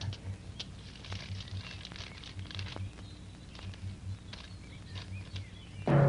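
A paper letter crinkling and rustling as it is unfolded: faint scattered ticks over a steady low hum.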